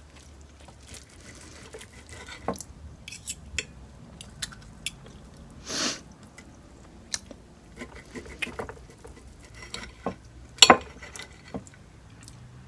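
Cutlery clinking and scraping on a plate during a meal: scattered light clicks, a longer scrape about six seconds in, and a sharp clack near the end.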